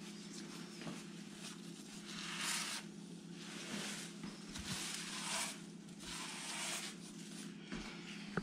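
Gloved fingers rubbing black grout into subway-tile joints: several scratchy rubbing strokes, each about half a second to a second long, over a steady low hum.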